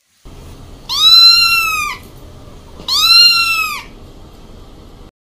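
Kitten trapped in a narrow pipe meowing twice: two loud, high cries of about a second each, each rising and then falling in pitch.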